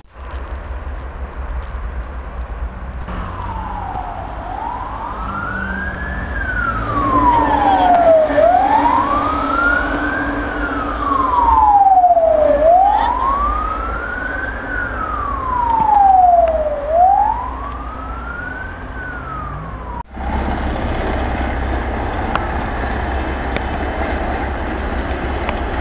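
Emergency vehicle siren wailing in slow rising and falling sweeps, about one every four seconds, over a steady low rumble. About twenty seconds in the sound cuts sharply, and afterwards the rumble continues with the siren only faint.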